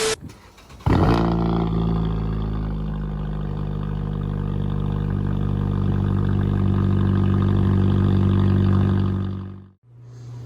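Emergency Alert System attention signal: a steady, buzzy alert tone about nine seconds long that starts about a second in and cuts off suddenly near the end. It announces that an emergency alert message follows.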